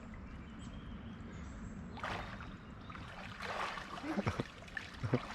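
Lake water splashing and sloshing, starting about two seconds in and swelling again a little later, with two short vocal sounds near the end.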